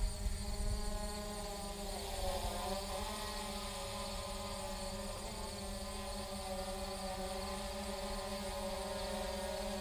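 Holy Stone HS700D quadcopter drone in flight, its propellers giving a steady multi-tone buzzing hum whose pitch wavers briefly about two to three seconds in. Wind rumbles on the microphone in the first second.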